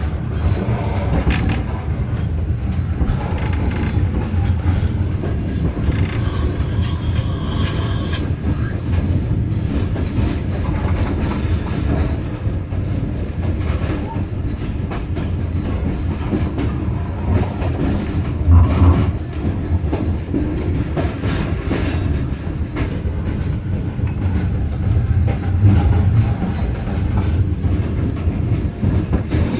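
Train running, heard from on board: a steady low rumble with the wheels clattering and knocking over the track, growing louder briefly about 18 seconds in and again near 26 seconds.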